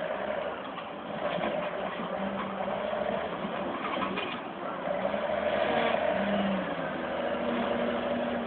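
Wheel loader's diesel engine running hard under load as the machine pushes a very heavy log onto a logging truck, its revs rising and falling and getting loudest a little past the middle.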